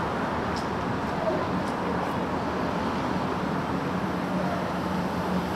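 Steady road traffic noise, with a low engine hum that comes in about a second and a half in and faint voices in the background.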